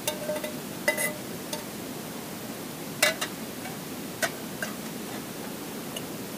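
Metal camping cookware clinking: a pot and lid knocked and handled over a small camp stove, giving several short, ringing clinks spread across a few seconds, the loudest about three seconds in, over a steady hiss.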